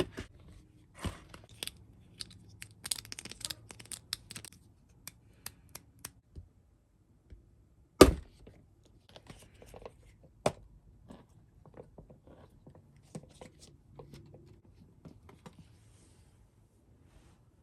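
Hands opening Barbie Color Reveal blind-box packaging: tearing and crinkling of wrappers among scattered small clicks and taps of plastic pieces. There is a dense run of crackling a few seconds in, and a single sharp knock about eight seconds in, the loudest sound.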